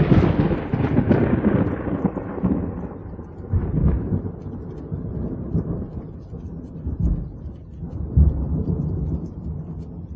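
Thunder sound effect: a sharp crack of lightning right at the start, then a long rolling rumble that fades, with further rumbles swelling at about three and a half seconds and again at about eight seconds.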